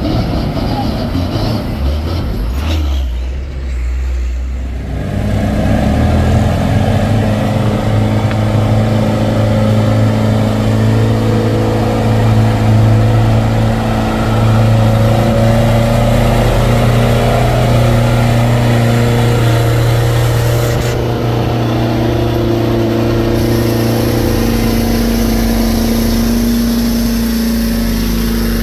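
Diesel truck engines pulling up a steep, rough unpaved climb: a loud, steady deep drone that holds its pitch for long stretches and shifts a few times.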